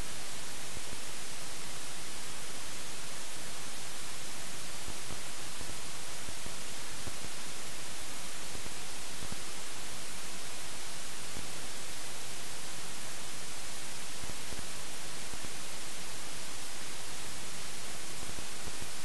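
Steady, even hiss of static, louder toward the high end, from a faulty camera's audio track that picked up no real sound.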